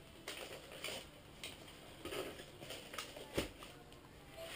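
Hands handling an airsoft shotgun in its foam-lined cardboard box: faint scattered taps, rustles and knocks, the loudest a sharp knock about three and a half seconds in.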